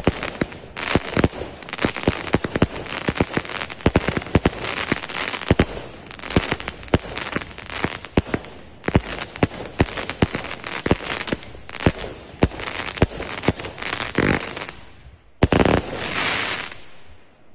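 A "What The? 100" consumer firework cake, a 100-shot barrage, fires shot after shot in quick succession, each launch and star burst a sharp bang. Near the end there is a brief dip, then a dense volley of shots before it dies away.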